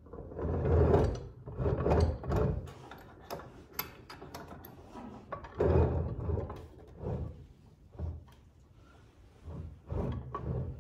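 Heavy cast-iron swivel bench vise being turned and shifted on a wooden workbench top: several rough scraping strokes, each up to about a second long, with knocks of metal on wood between them.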